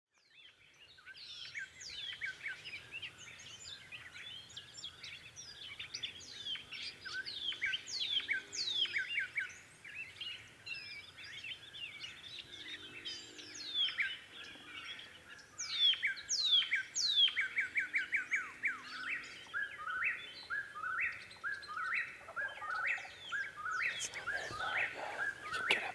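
Many songbirds singing and calling over one another, a dense chorus of quick falling whistles and rapid runs of notes that builds after the first second.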